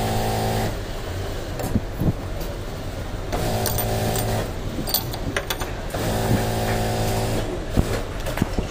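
Zigzag sewing machine's electric motor run in three short bursts of about a second each, a steady hum. Light sharp clicks come in between, from the metal needle plate and parts being set in place.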